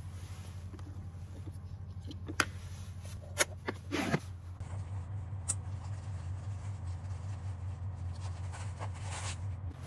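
A few sharp clicks and knocks as a small flashlight is picked up and handled, then soft jacket-fabric rustling as it is clipped onto the chest of a coat, over a steady low hum.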